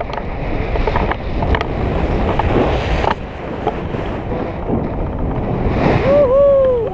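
Wind buffeting the action camera's microphone on a tandem paraglider flight in a steep banking turn, with a few sharp knocks in the first few seconds. About six seconds in, the wind swells and a person lets out a long, falling cry.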